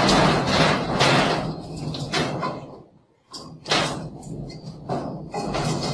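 A dog scrambling up a sheet-metal door, the door rattling and knocking under its claws and weight, with several sharp knocks as it scrabbles for a hold.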